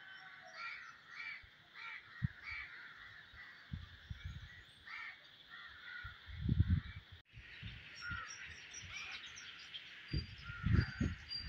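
Birds calling, a run of short harsh calls repeated about twice a second, with more calls overlapping through the rest. Low rumbles come and go beneath them, loudest about six seconds in and again near the end.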